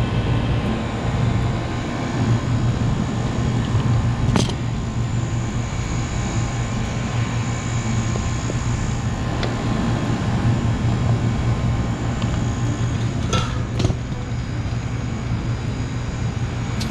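Walk-in cooler's refrigeration condensing unit running: a steady low hum from the compressor and condenser fan, with two short knocks, one about four seconds in and one near the end.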